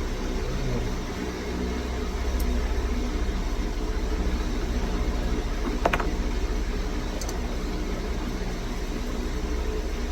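An engine idling steadily with a low hum, and a single sharp small click about six seconds in.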